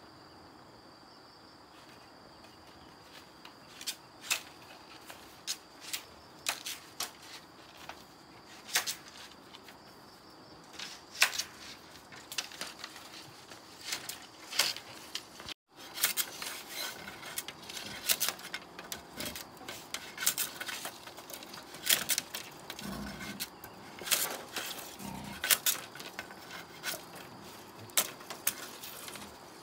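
Bamboo poles being handled and then cut and split with a knife: irregular sharp knocks and clacks, sparse at first and coming thick and fast in the second half, with a couple of duller thumps. A steady high insect drone runs underneath.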